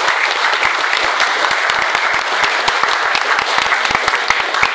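Audience applauding in a wood-panelled room: many people clapping at once, a dense steady patter of overlapping claps, loud and sustained.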